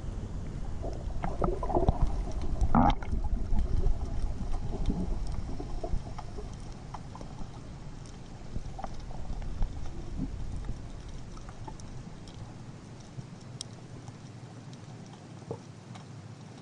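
Muffled low rumbling of moving water with scattered knocks and clicks; the rumble drops away about twelve seconds in.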